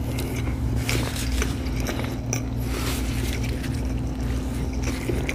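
Close chewing and biting of food, with a few faint mouth clicks, over a steady low hum.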